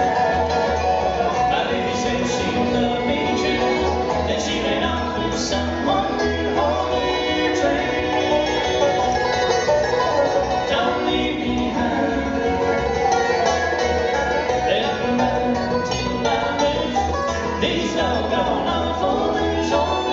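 Bluegrass band playing live: banjo, mandolin, acoustic guitar, fiddle and dobro over a steady bass beat.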